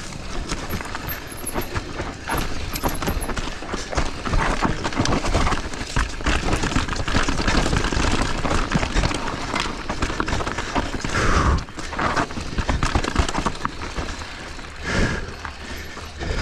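Mountain bike riding down a rocky technical trail: tyres clattering over rocks and the bike rattling, with many irregular knocks and impacts and the loudness surging up and down.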